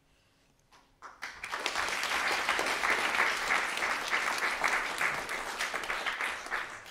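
Audience applause: many hands clapping together. It starts about a second in and dies away near the end.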